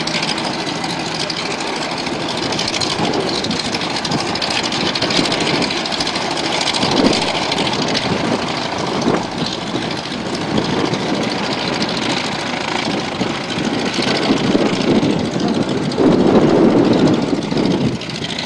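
An engine running steadily, swelling louder near the end.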